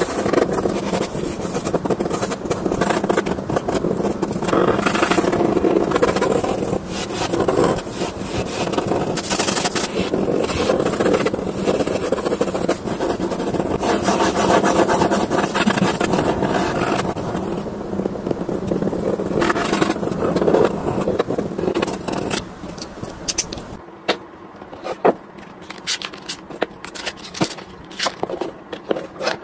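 Pen nib scratching across paper in quick, dense strokes of line drawing. Near the end this gives way to scattered sharp clicks and taps as a pen box and its parts are handled.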